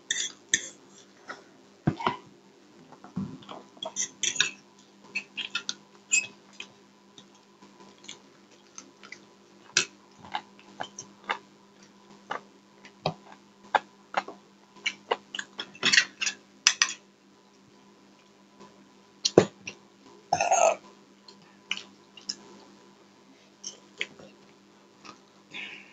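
Close-miked eating sounds: chewing, lip smacks and short wet clicks as tandoori chicken is pulled apart and eaten with the fingers, with one longer, louder throaty mouth sound late on. A faint steady hum runs underneath.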